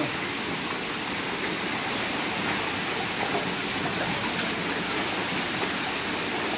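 Steady splashing and churning of water in a hatchery holding tank crowded with carp, an even, continuous hiss.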